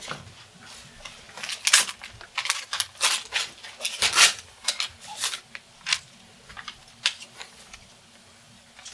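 Paper rustling and crinkling in a string of short, irregular bursts as a letter is handled, opened and unfolded, thinning out near the end.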